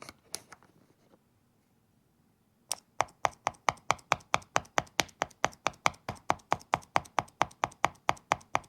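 A single mechanical key switch under the shift key of a GMK87 keyboard kit, pressed over and over: a quick, even run of sharp clacks, about five a second, beginning nearly three seconds in. A few faint taps come before it.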